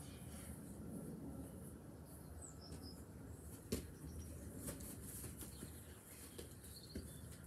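A football being kicked on grass: a few short thuds, the sharpest about halfway through, over a steady low background hum, with a few faint bird chirps.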